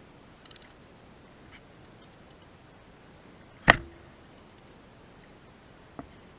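A loud, sharp click or knock a little past halfway through, then a much fainter one near the end, over a steady low hiss.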